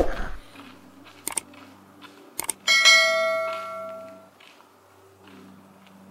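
A bell-like chime struck once, ringing out and fading over about a second and a half, after a few faint clicks.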